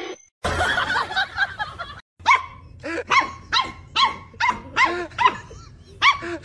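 A dog barking in a string of short, quick barks, about two to three a second, after a brief break about two seconds in.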